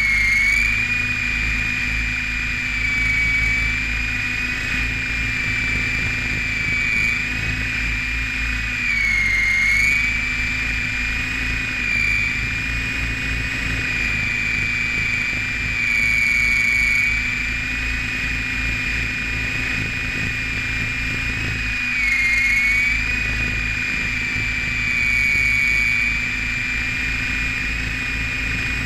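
RC helicopter's motor and rotor whine heard from a camera mounted on the helicopter: a high, steady whine that dips briefly in pitch and swells every few seconds as the throttle changes, over a low rattling rumble from the airframe's vibration.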